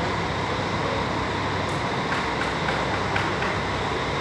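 Diesel engine of a Marcopolo intercity coach idling steadily, a constant low drone, with a few faint clicks in the middle.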